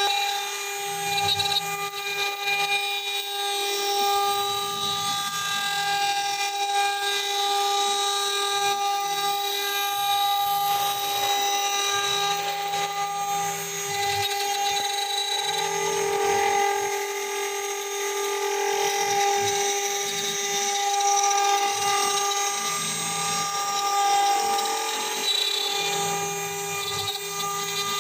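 Spindle of a CNC router-engraver running at a steady high whine while it engraves, with a lower hum that comes and goes every few seconds as the machine works.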